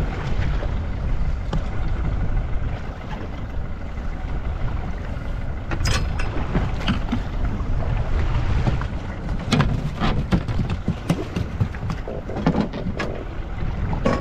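Steady low rumble of a boat at sea. From about six seconds in there is a run of sharp knocks and clicks on board.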